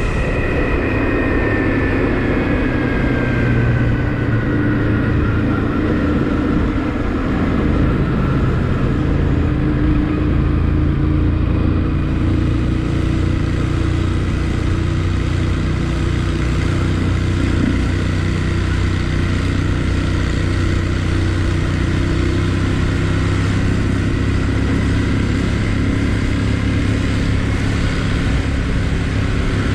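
Dual-sport motorcycle engine running at low revs while riding slowly, with a steady hum and a tone that falls slowly over the first several seconds before settling.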